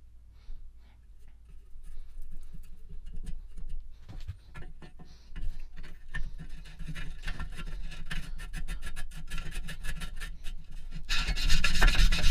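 The hand pump plunger on a Sheen flame gun's fuel tank being worked up and down in its brass cylinder, with a rasping rub from the plunger seal. The strokes are sparse at first, become more continuous, and are loudest near the end.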